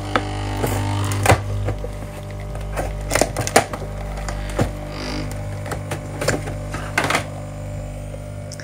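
Irregular clicks and light knocks of small objects being handled, over a steady low hum.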